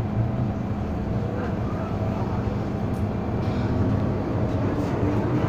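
Hong Kong MTR M-Train electric multiple unit heard from inside the car, running with a steady rumble and hum from its wheels and motors. Near the end a whine rises in pitch as the train picks up speed leaving the station.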